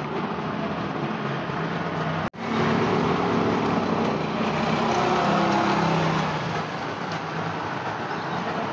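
Steady street traffic noise, with the hum of passing vehicle engines. A sudden split-second dropout about two seconds in, after which the traffic is a little louder.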